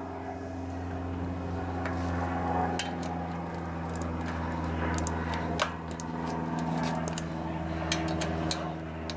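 Several short metallic clinks of a torque wrench and socket being handled and set on the sump-cover bolts, the sharpest a little past halfway, over a steady low hum.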